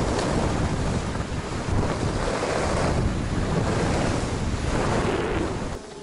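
Heavy wind rushing over an action camera's microphone while riding fast down a groomed ski slope, the rush swelling and easing with each turn. It drops away suddenly near the end.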